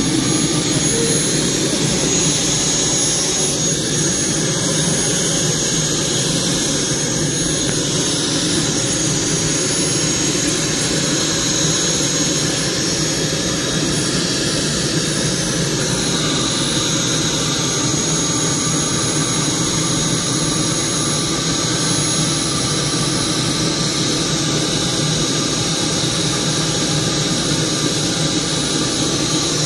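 A radio-controlled model jet's small turbine engine running at a steady speed, a constant high whine over a deep rushing noise.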